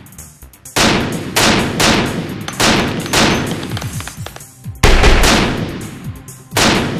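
Gunshots: about seven heavy, echoing shots fired at irregular intervals, with a pause of over a second near the middle.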